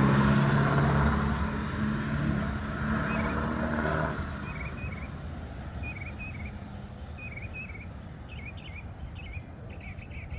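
A motor vehicle engine running and fading away, stopping about four seconds in, then a small bird chirping short two-note calls about once a second, coming in faster runs near the end.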